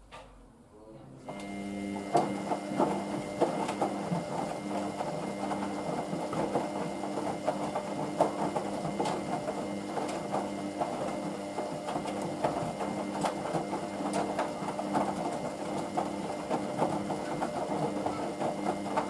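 Hoover VisionDynamic washing machine turning its drum on the 40 °C main wash: a steady motor hum with rattling, starting about a second in and cutting off near the end.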